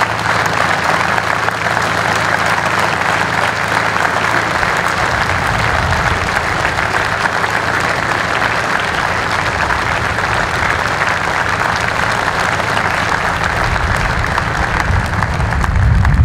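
Stadium crowd applauding steadily in a minute's applause.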